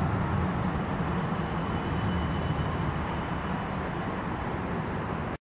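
Steady rumble of city street traffic, stopping abruptly near the end.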